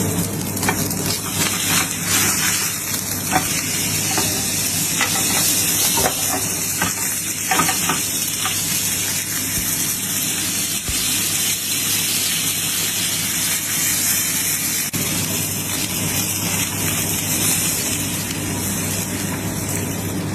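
Steak sizzling and frying in a hot pan: a steady hiss with scattered small pops and crackles.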